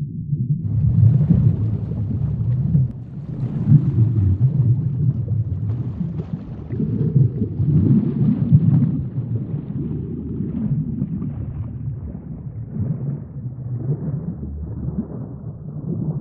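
Deep sea ambience: a steady low rumble that swells and fades every second or two, with a faint hiss above it.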